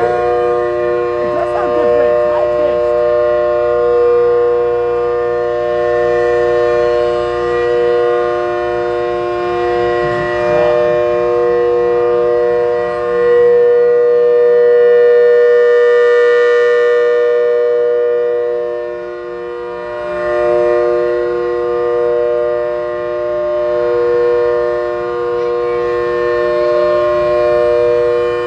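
ACA Hurricane MK1 siren running at full speed, holding a steady chord of several tones. The loudness swells and fades every few seconds.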